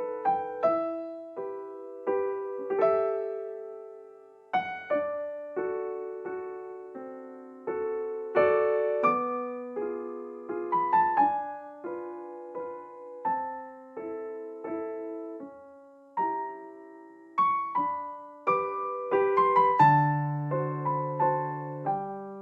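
Background piano music: a slow, gentle melody of struck notes and chords that ring and fade, with a lower bass note coming in near the end.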